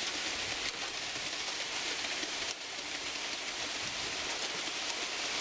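Wet concrete sliding down a ready-mix truck's chute and pouring into a wooden form, a steady rain-like rush with a brief dip about two and a half seconds in.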